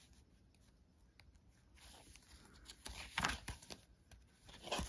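Paper rustling as the pages and cards of a handmade junk journal are handled and turned: a few short, soft swishes, the loudest about three seconds in.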